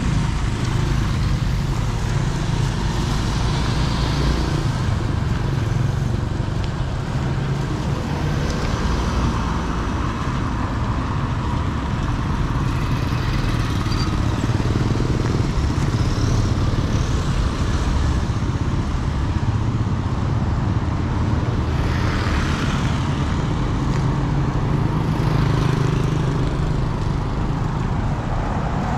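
Road traffic running past, a steady low rumble of vehicle engines and tyres. A couple of vehicles pass louder about three-quarters of the way through.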